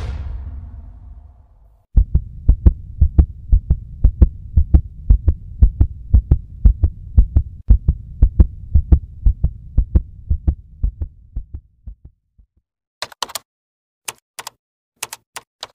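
Heartbeat sound effect: evenly spaced low thumps, about three a second, that fade away after about ten seconds. Near the end come a few sharp typing clicks.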